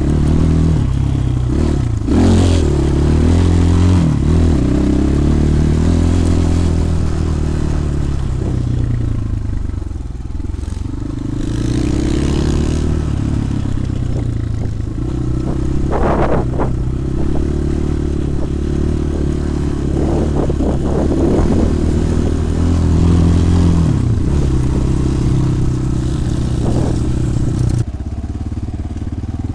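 Small 250 cc enduro motorcycle engine running under way, its revs rising and falling as it is ridden over rough ground, with a few knocks and rattles along the way.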